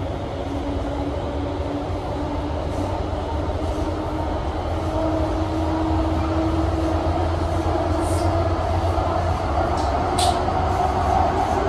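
Siemens SD660 light-rail car under way, heard from inside: a steady low rumble of wheels on the track with a faint motor whine that rises slowly in pitch as the train gets louder. A couple of brief sharp clicks near the end.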